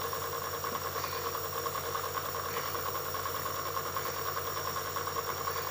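Jet nebulizer's small compressor running with a steady hum, driving medicine mist into a child's face mask.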